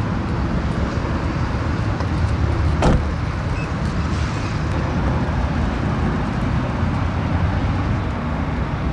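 Steady low rumble of motor-vehicle noise, with a single sharp click about three seconds in.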